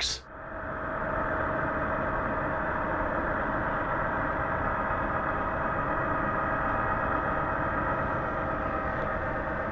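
Sound-equipped HO-scale model diesel locomotive playing a steady diesel engine running sound from its sound decoder.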